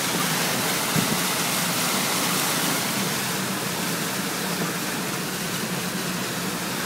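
Floodwater spraying and rushing against the body of a car as it drives through a flooded road, heard from inside the cabin: a steady wash of water over the low hum of the engine, with a small knock about a second in.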